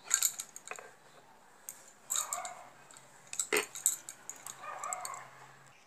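Light clinking and rattling in four short clusters as hands handle crochet work and the objects around it.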